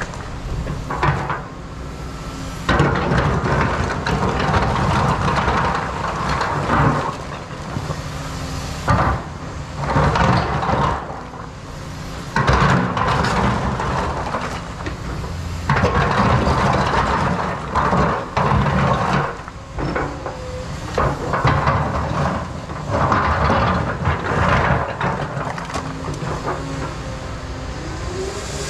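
Caterpillar 335 Next Gen excavator working, its diesel engine humming steadily under changing load, with irregular louder noisy stretches every second or two from the machine and its bucket at work on rock.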